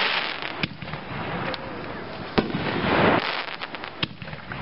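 Raccoon Neon Skies reloadable aerial shells bursting overhead: three sharp bangs spread over a few seconds, with a rapid run of crackles after the second.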